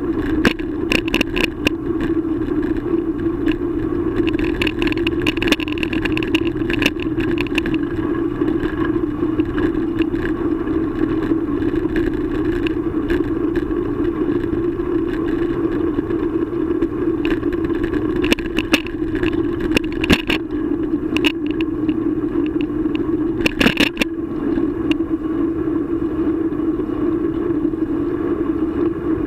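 Bicycle ride heard through a bike- or rider-mounted action camera: a steady rolling hum of wheels and wind, broken by scattered clicks and rattles as the bike goes over bumps, with the loudest rattle about three-quarters of the way through.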